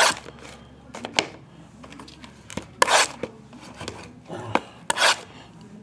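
Foil trading-card pack wrappers being cut open by hand, as a few short scratchy strokes. The loudest strokes come about three and five seconds in.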